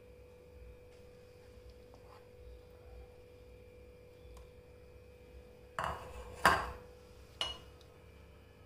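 Three sharp clinks of kitchenware in quick succession past the middle, the second the loudest, over faint room tone with a steady hum.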